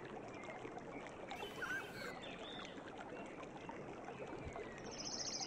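Outdoor ambience: a steady hiss with scattered small bird chirps, and a fast high trill near the end.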